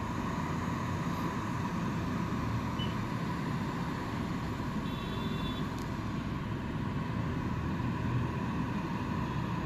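Bus engine and road noise heard from inside the cabin: a steady rumble with a faint steady whine.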